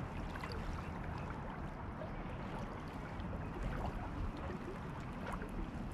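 Small waves lapping and splashing at the shoreline, with scattered small splashes over a steady low rumble of wind on the microphone.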